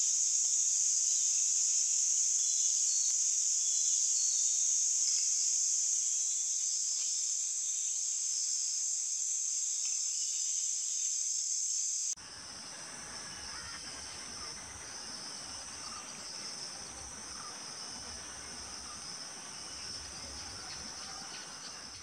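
A steady, high-pitched insect chorus chirring without a break. About halfway through it drops suddenly to a fainter chorus over a wider outdoor hiss.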